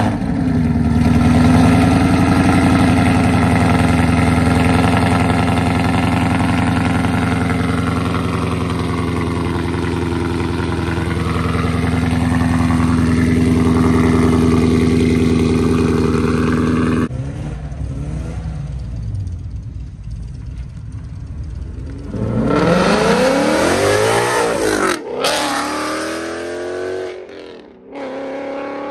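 Car engines. One runs loudly at a mostly steady pitch for over half the time and then stops abruptly. Later another engine's pitch rises and then falls.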